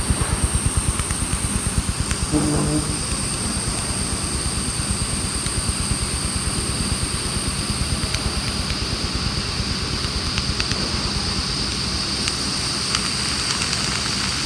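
Handheld laser welder working on brass: a fast, even crackling buzz over a steady high whine, with a brief low tone about two and a half seconds in.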